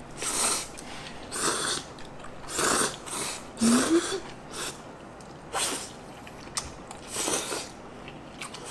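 Two people slurping instant ramen noodles (Neoguri) from chopsticks: a series of short, airy sucking pulls, about one a second, with small gaps between mouthfuls.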